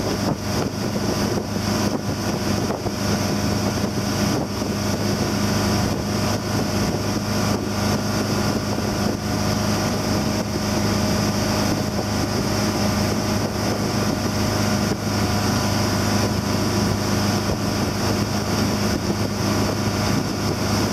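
Motorboat engine running at a steady speed while towing, its hum unchanging, with wind noise on the microphone.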